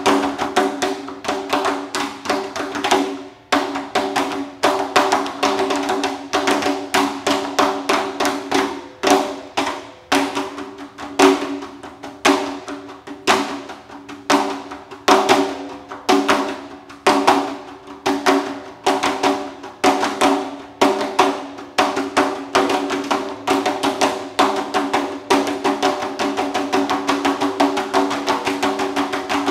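Three percussionists playing a large hand-thrown ceramic pot with their bare hands: fast interlocking slaps and taps over the pot's own few steady ringing tones. Near the end the strikes thicken into a near-continuous roll.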